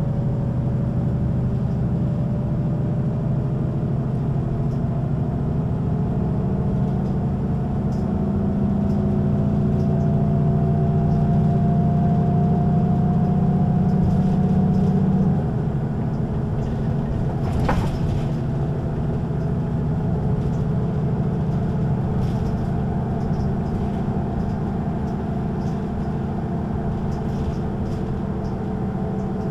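Mercedes-Benz O 530 G Citaro articulated bus under way, its diesel engine and ZF automatic gearbox running with a steady low drone and a whine that rises slowly as the bus picks up speed. The sound eases off about halfway through, and a single sharp click comes a couple of seconds later.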